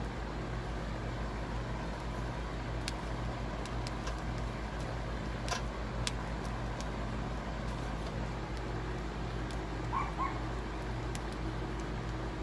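Wood kindling fire in a small grill, crackling with a few sharp pops over a steady low hum. Two short animal calls sound about ten seconds in.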